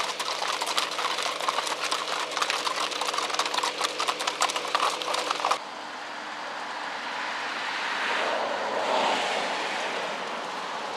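Hooves of several Icelandic horses clattering and crunching on gravel as they pass close by, a fast stream of clicks over a faint steady hum. About halfway through it cuts off suddenly to a steady rushing noise that swells and then eases.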